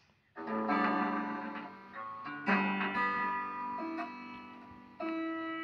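Background music: a few chords struck and left to ring, each fading slowly before the next one.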